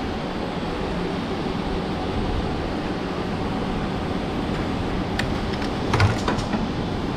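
Automatic curry puff (karipap) making machine running, a steady mechanical hum from its motors and dough conveyor. A sharp click about five seconds in, then a quick cluster of clicks with a low knock about a second later.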